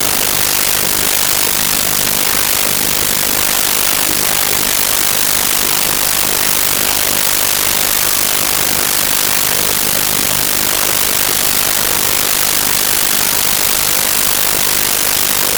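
Loud, steady static hiss, strongest in the high end, with nothing else heard through it: a faulty audio track.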